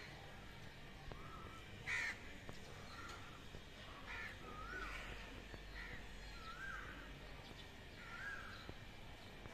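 Crows cawing faintly: short caws about every two seconds, the loudest about two seconds in, with a softer rising-and-falling call repeated between them.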